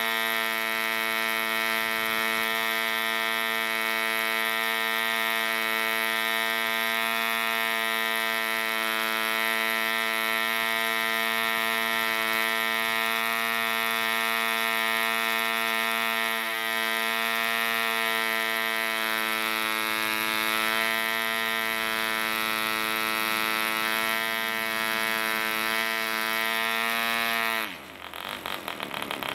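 Mills 1.3 cc vintage model diesel engine turning a propeller, running at a steady high pitch. Near the end it runs out of its measured 10 ml of fuel: the note falls away quickly and the engine stops.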